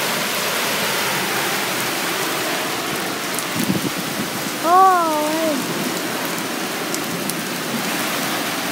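Heavy rain pouring steadily onto a waterlogged yard, an even hiss. About five seconds in, a brief wavering voice-like call rises over the rain.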